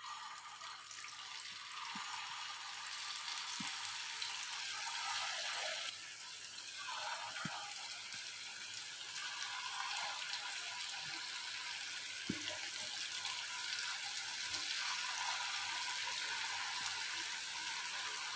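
Potato bites deep-frying in hot oil in a stainless-steel pan: a steady sizzle as the oil bubbles around the pieces, with a few faint clicks. The oil is hot enough to sizzle hard on contact.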